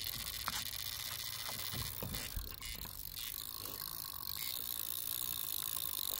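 Fishing reel's drag clicking rapidly and without pause as a hooked carp runs, stripping line off the spool against the loosened drag.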